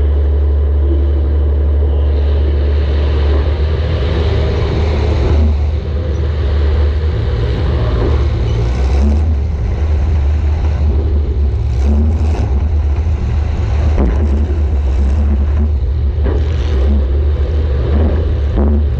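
Demolition derby compact car's engine running hard, heard from on board the car, with a few sharp bangs in the second half.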